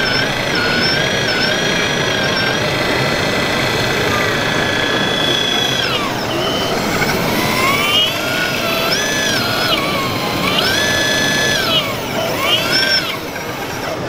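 Radio-controlled Volvo crawler excavator model working in sand: its motor and hydraulic pump whine, the pitch rising to a plateau and falling again several times as the boom and bucket move, over a steady background noise of a crowd.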